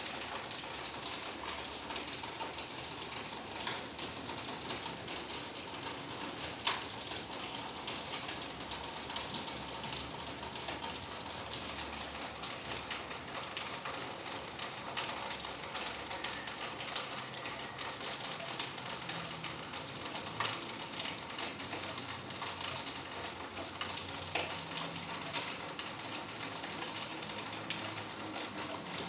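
Steady rain falling, a dense run of small drop ticks, with a louder single drop now and then.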